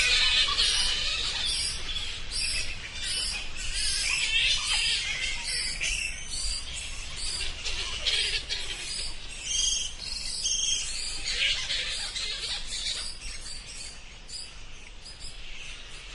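Bats squeaking and chirping in rapid, overlapping high-pitched calls, gradually growing fainter.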